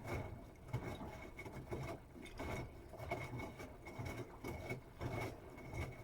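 Bosch Serie 8 WAW32590 washing machine drum turning a wet cotton load during the wash: irregular soft thumps and sloshing as the laundry tumbles, about once or twice a second, over a faint steady high whine.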